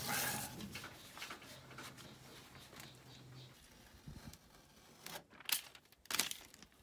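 Paper backing being peeled off a vinyl decal on an aluminium boat hull: a short crinkling rustle at the start, then quieter handling, with a few sharp clicks about five to six seconds in.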